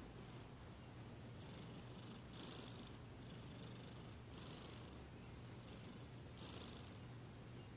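Sleeping cat snoring faintly: a soft, breathy rasp that comes back about every two seconds over a low, steady drone.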